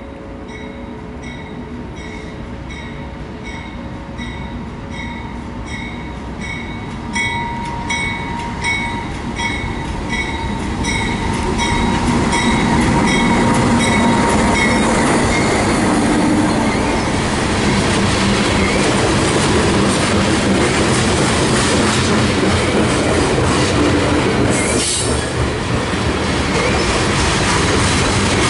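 BNSF freight train led by a GE C44-9W locomotive approaching at slow speed, its rumble growing until the locomotive passes about twelve seconds in. After that the covered hopper cars roll by with wheel clatter and squeal. A bell rings about twice a second through the first ten seconds or so.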